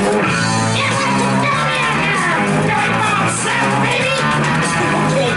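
Rock music with guitar and a steady bass line.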